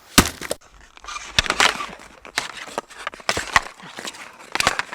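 Sports foley: a string of irregular sharp knocks and hits, about eight in under five seconds, with short scraping rushes between them.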